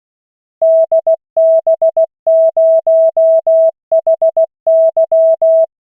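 Computer-generated Morse code (CW) at 16 words per minute: a single steady mid-pitched tone keyed into long and short elements, sending a callsign for copying practice. It starts about half a second in and stops shortly before the end.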